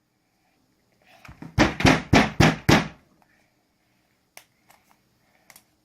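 Five quick hard-plastic knocks, about three a second, followed by a few light clicks, as plastic toys are banged together.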